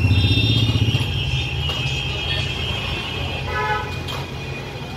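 Street traffic: a motor vehicle's engine running close by, loudest in the first second and then fading, with high steady tones over it and a short horn toot near four seconds in.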